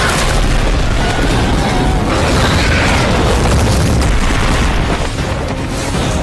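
Film sound effects for a giant-monster fight: dense, heavy booming and rumbling crashes, with orchestral score faintly underneath.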